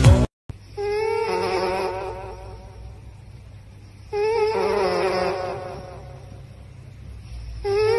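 A sleeping dog snoring close into a microphone held at its nose. Each outward breath comes as a wavering, buzzing whistle that fades over a second or two. It repeats about every three and a half seconds: about a second in, around four seconds in, and again near the end.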